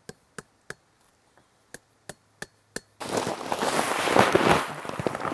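Hammer blows nailing a sign to a tree trunk: three quick sharp knocks, a pause, then four more. About three seconds in they give way to loud, dense rustling and crunching.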